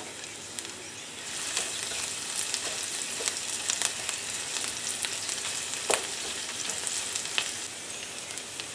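Sliced shallot and herbs (bay, sage, rosemary) sizzling gently in a couple of spoonfuls of oil in a non-stick frying pan, a steady hiss with scattered crackles, stirred with a wooden spoon. The sizzle picks up about a second in and eases a little near the end.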